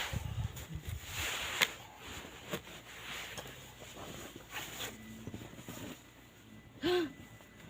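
Irregular crunching and rustling of movement through snow, with a sharp click a little over a second in. Near the end comes one short whine that rises and falls.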